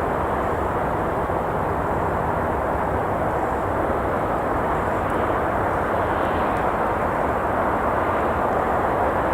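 Steady hum of traffic on a nearby road, an even, unbroken wash of noise.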